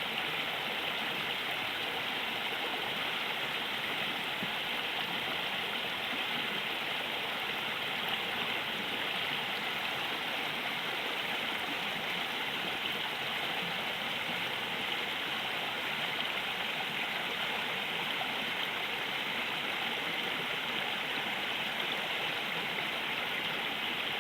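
A river's water flowing and rushing steadily over stones, an even unbroken hiss with no pauses.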